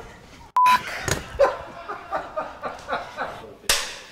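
People laughing and snickering, with a brief steady beep about half a second in and a short loud burst of noise near the end.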